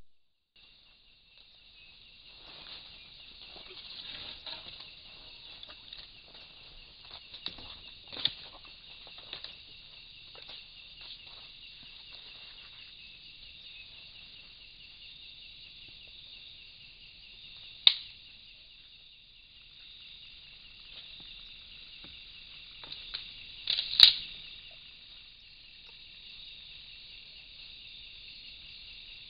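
Steady high-pitched chorus of night insects, with crackling and rustling of leaves and branches in the first dozen seconds as Sumatran elephants feed in coffee bushes. Sharp cracks sound about 8 s and 18 s in, and the loudest, a quick cluster of them, about 24 s in.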